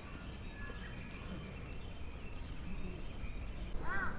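Outdoor ambience with a low steady rumble and faint thin bird chirps, then a crow starts cawing right at the end.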